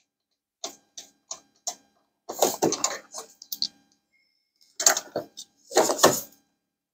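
Clicks and knocks of a small bolt and bracket being handled and fitted by hand on a motorcycle: a few light ticks, then louder clusters of clatter about two and a half, five and six seconds in.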